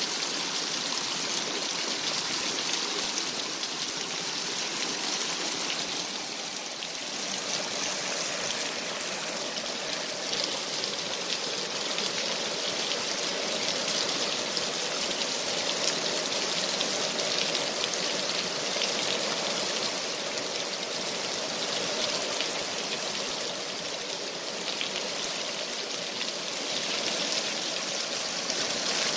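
Heavy rain falling steadily, a dense, even hiss of drops.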